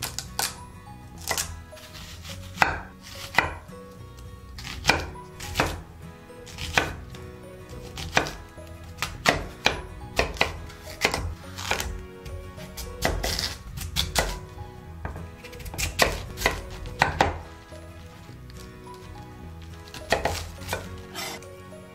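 Chef's knife chopping vegetables on an end-grain wooden cutting board: irregular sharp knocks of the blade striking the wood as celery, potato and cabbage are cut, thinning out near the end.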